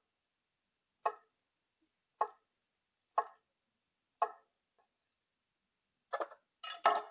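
Freshly sharpened chef's knife slicing cucumbers on a wooden cutting board: four single knocks of the blade on the board, about one a second. Near the end the slices are scraped off the board into a stainless steel bowl with a louder clatter.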